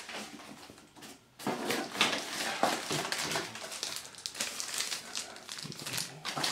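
Clear plastic packaging crinkling and cardboard rustling and scraping as accessories are handled and lifted out of the box, in irregular bursts after a brief lull about a second in.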